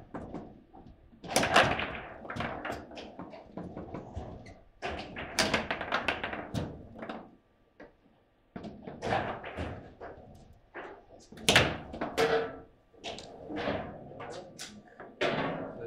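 Table football in play: a rapid, irregular series of sharp knocks and clacks as the ball, plastic players and rods strike, with a short lull about halfway through.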